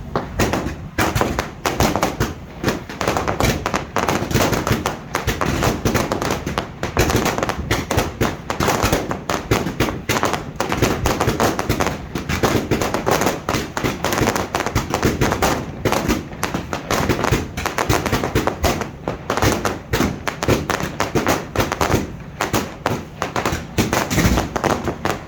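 Fireworks display: a dense, continuous barrage of bangs and crackling shell bursts, many each second.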